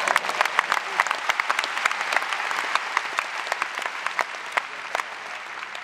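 Tennis arena crowd applauding: many hands clapping, dense at first and thinning out toward the end.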